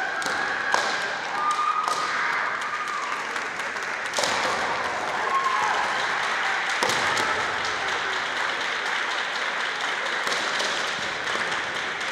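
Echoing din of a kendo hall with several bouts under way: fencers' drawn-out kiai shouts and sharp cracks of bamboo shinai strikes and stamping feet on the wooden floor, a few cracks standing out about one, four and seven seconds in.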